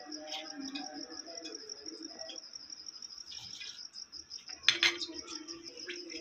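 A cricket chirping steadily in a fast pulsing trill, under the soft sounds of a kitchen knife trimming the crusts off a slice of bread on a glass plate, with one sharp click of the knife against the glass about three-quarters of the way through.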